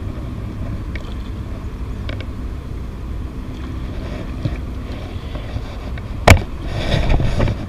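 Low steady rumble of wind buffeting the microphone, with one sharp knock about six seconds in.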